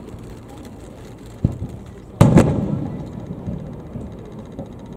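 Aerial firework shells bursting: a sharp bang about a second and a half in, then a louder double boom just after two seconds that rumbles away, and another bang at the very end.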